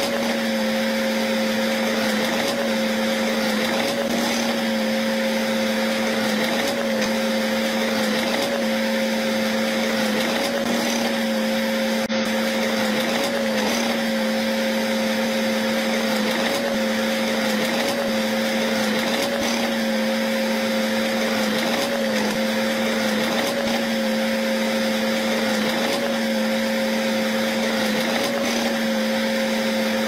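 Crawler bulldozer running steadily while pushing rock: a constant machine whine at one unchanging pitch, with no revving.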